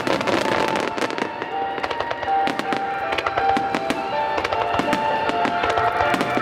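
Starmine fireworks barrage: rapid, overlapping bangs and crackles of shells bursting, with music playing alongside.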